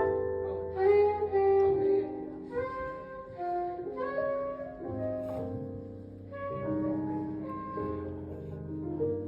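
Live band playing: a saxophone melody of short changing notes over keyboard chords and sustained low bass notes.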